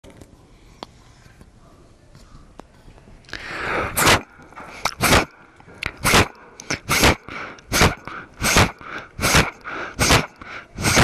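A person huffing out loud, breathy breaths in a steady rhythm, a little more than one a second, starting about three seconds in.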